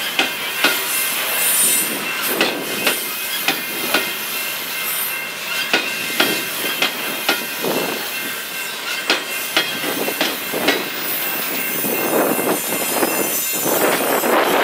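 Freight train's covered hopper cars rolling over a grade crossing, their wheels click-clacking over a noisy rail joint in sharp, repeated clacks over a steady rolling rumble. The rumble grows louder near the end.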